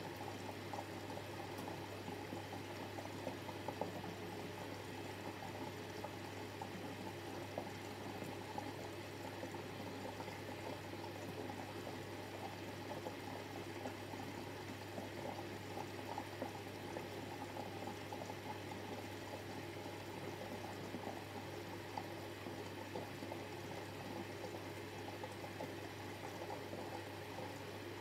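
Water running steadily into the drum of a Miele Novotronic W715 front-loading washing machine as it fills for a rinse, over a steady low hum.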